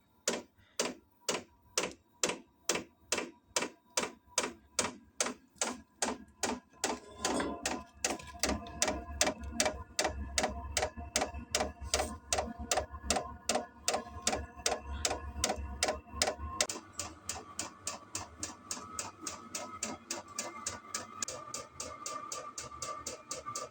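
Vevor diesel heater's stock fuel dosing pump clicking in a steady rhythm during start-up, the clicks coming faster as it goes, with the heater's fan and burner running underneath from about seven seconds in. This is the loud clicking noise of the original pump.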